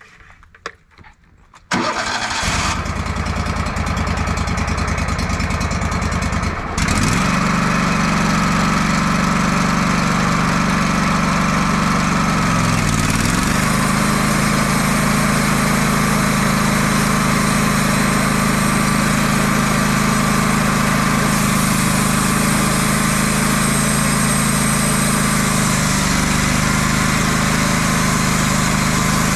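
Wood-Mizer sawmill engine starting about two seconds in and running; about seven seconds in it steps up louder, dips briefly in pitch a few seconds later, then runs steadily.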